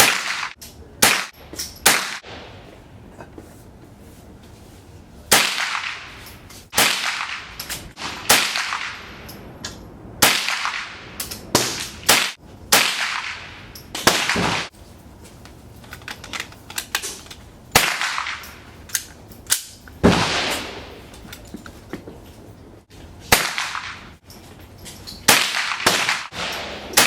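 .22LR semi-automatic gunshots fired one at a time at an uneven pace, about twenty sharp cracks, each with a short echo trailing off.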